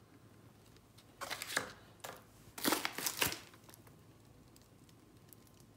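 Crinkling and rustling of vacuum-sealed plastic packs of frozen fish being handled, in two short spells: about a second in and again around three seconds in.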